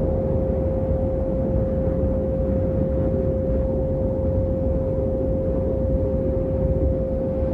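A steady, pure electronic tone, mid-pitched and unwavering, held over an even low rumbling noise: a meditation 'healing frequency' track.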